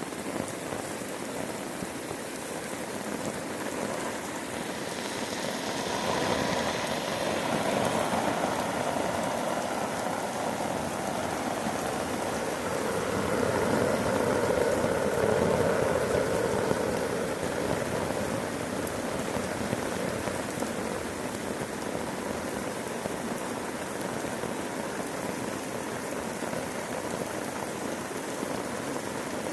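Heavy thunderstorm rain pouring steadily on a tarp overhead, swelling louder about six seconds in and again around the middle.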